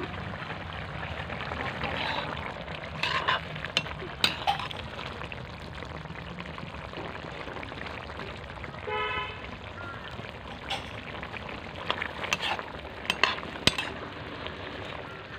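Fish curry simmering and sizzling in an aluminium wok, with a ladle scraping and clinking against the pan several times. A brief call cuts in about nine seconds in.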